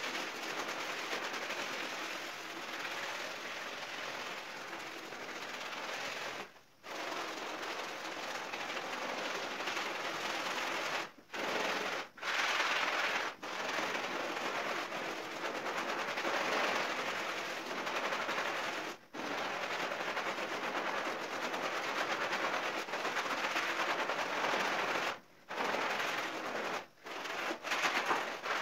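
A soapy, foam-covered rug being scrubbed hard by hand with a scrubber, making a dense, rapid scratching that runs on with several brief breaks.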